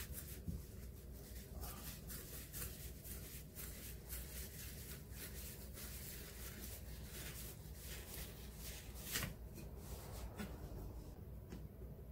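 Kitchen knife scraping and slicing along the skin of a hiramasa (yellowtail amberjack) fillet on a plastic cutting board as the skin is cut away, a run of irregular soft scratches and swishes. There is one sharper click about nine seconds in.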